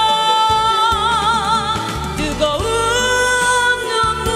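A woman singing a slow Korean ballad over instrumental accompaniment. She holds one long note with vibrato, then slides up into another sustained note about two and a half seconds in.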